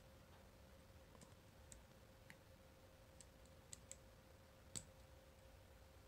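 Faint, scattered clicks of a steel lock pick working the pin tumblers inside a 70mm ISEO brass padlock held under tension, the strongest a little before five seconds in.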